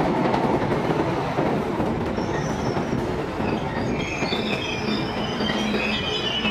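London Underground Bakerloo line train of 1972 tube stock pulling into the station and braking. A dense rumble runs throughout, and high-pitched wheel and brake squeals join about two seconds in and grow stronger as the train slows to a stop.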